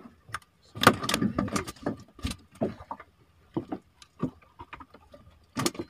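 Irregular knocks, clicks and rustling of a fisherman handling a handline against the boat's gunwale while hauling in a fish that has just struck.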